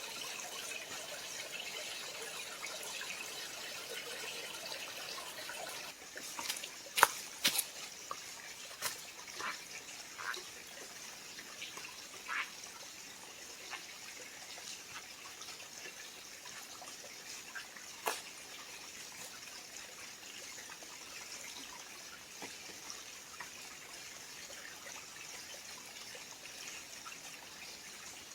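Creek water trickling steadily, with a scatter of sharp clicks or knocks in the middle stretch, the loudest about seven seconds in.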